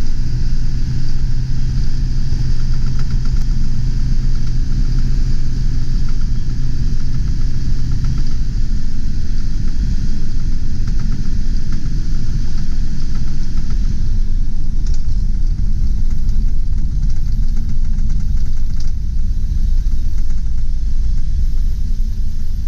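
1999 Ford Super Duty box truck's 7.3L Power Stroke V8 turbo diesel running as the truck is driven, a loud, steady low rumble; a steady drone in it drops away about eight seconds in.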